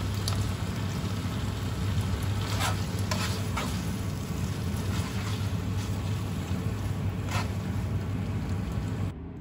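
Spaghetti in tomato sauce sizzling in a frying pan as it is tossed with metal tongs, with a few sharp clicks of the tongs against the pan, over a steady low hum. The sizzling cuts off suddenly near the end.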